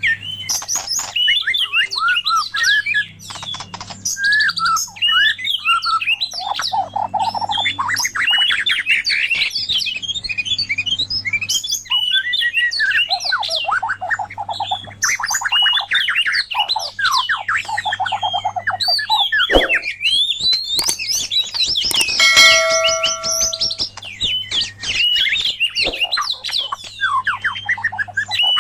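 White-rumped shama (murai batu) and oriental magpie-robin (kacer) singing, a continuous run of rapid, varied whistled phrases, chirps and trills. About three-quarters through, a brief held note with overtones stands out as the loudest moment.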